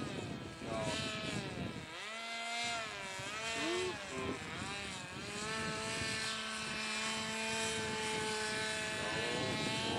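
Motor and propeller of a homemade plastic radio-controlled model airplane in flight, a whine whose pitch dips and rises several times in the first few seconds, holds steady for a few seconds, then climbs near the end.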